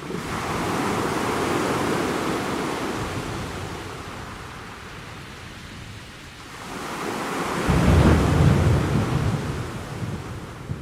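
Sea waves breaking on the shore in two swells of surf; the second is louder, with a deep rumble about eight seconds in.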